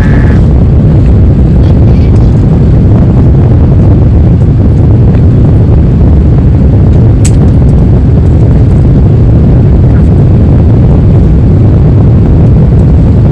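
Steady, loud, low cabin noise of an Airbus A350 in flight: its Rolls-Royce Trent XWB engines and the airflow heard from inside the passenger cabin.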